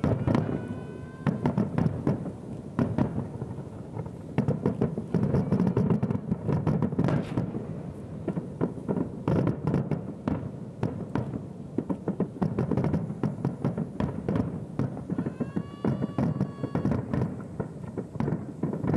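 Dense fireworks barrage heard from about 2 km away: many shell bursts in quick, irregular succession, a continuous rolling rumble of booms with sharp cracks on top.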